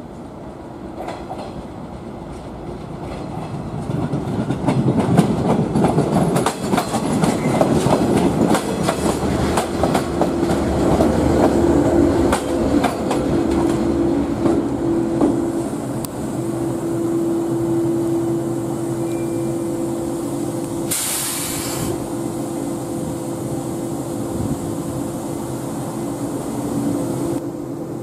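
Joshin Electric Railway 700 series electric train, a converted JR 107 series, rolling slowly past on a shunting move, its wheels clicking over rail joints and points, loudest about 5 to 15 seconds in. A steady hum from the train carries on after it passes, with a short burst of air hiss about 21 seconds in.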